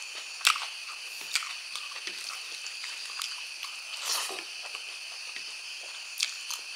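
A person eating close to the microphone: chewing, with a few sharp crunches and wet smacks, and a longer burst of mouth noise about four seconds in as a handful of rice goes into the mouth.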